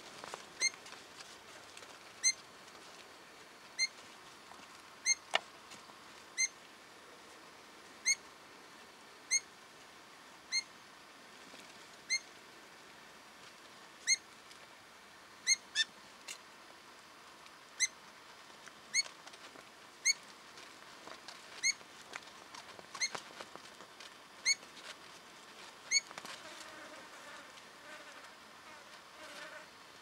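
Tawny-crowned honeyeater giving a short, high call note over and over, roughly once every second or so, sometimes two in quick succession.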